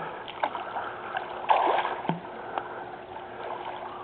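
Pool water splashing and lapping around a person floating on a plastic EMS spine board, with several small splashes and a louder one about a second and a half in.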